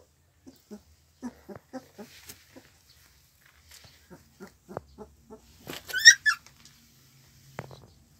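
Young puppies whimpering and grunting in a run of short low calls, then a loud high-pitched squeal about six seconds in.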